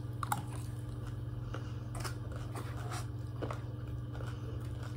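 A person eating with a disposable plastic spoon and fork: a few scattered clicks and scrapes of the cutlery on the food and plate, and quiet chewing, over a steady low hum.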